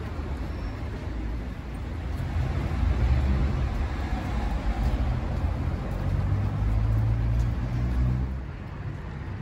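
City street traffic with a motor vehicle's engine rumble that swells about two seconds in and fades near the end.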